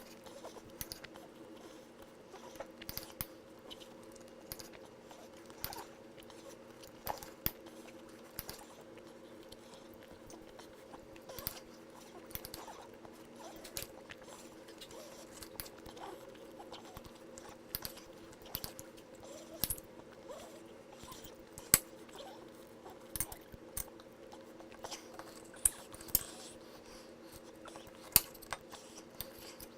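Knife and fork clicking and clinking against a plate at irregular intervals, with chewing, as a steak is eaten. A steady hum runs underneath.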